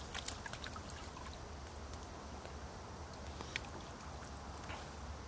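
Faint steady murmur of river water, with a few light clicks scattered through it.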